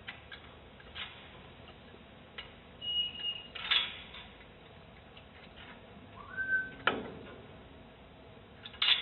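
Metal pen gate knocking and rattling in a few sharp knocks as a goat with its head through the bars shifts against it. Two short whistled notes come in between, one about three seconds in and a rising one shortly before the loudest knock.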